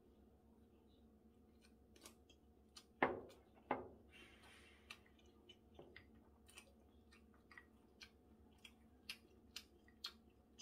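Quiet eating sounds: chewing, with small clicks of metal chopsticks against a ceramic rice bowl and two louder knocks about three seconds in.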